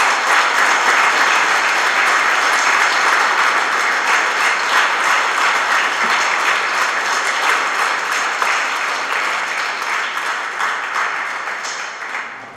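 Audience applauding steadily, easing off over the last few seconds and stopping near the end.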